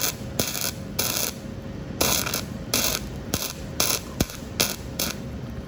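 Flux-core MIG welder laying weld in short trigger bursts, about ten crackling spurts at uneven spacing with a few sharp clicks between. It is building up a dab of weld on a broken exhaust manifold stud so a nut can be welded on, and the heat helps loosen it in the head.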